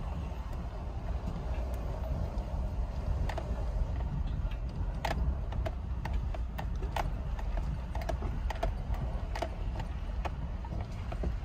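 Vehicle driving slowly over a rough dirt road: a steady low rumble with scattered sharp clicks and knocks as it jolts over ruts.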